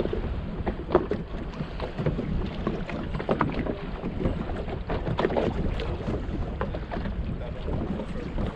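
Choppy sea slapping and splashing against the hull of an open pirogue in rough water, with irregular knocks from the chop and wind buffeting the microphone.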